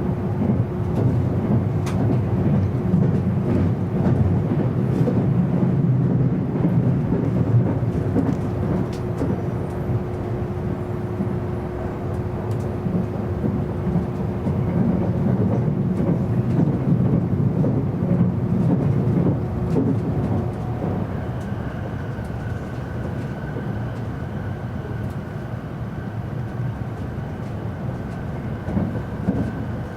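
Running noise inside an E259 series Narita Express electric train at speed: a steady rumble of wheels on rail with faint clicks. A steady low hum drops out about two-thirds through, and a higher steady whine comes in.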